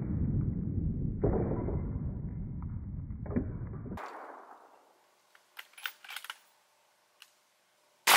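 A muffled, low boom from a .223 rifle hit on a bare chainsaw motor dies away over about four seconds, with two more thuds in it. After a short near-quiet stretch with a few faint ticks, a loud, sharp .223 rifle shot cracks near the end.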